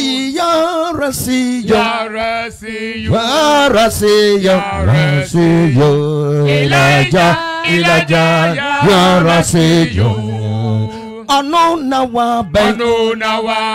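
Worship singing: voices chanting a repetitive song over steady held accompanying notes.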